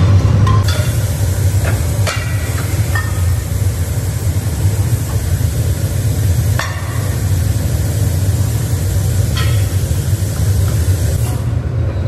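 Scrap-melting furnace running with a steady low rumble, while chunks of scrap aluminium such as cylinder heads and engine casings are tossed into the melting pot with a handful of sharp metal clanks.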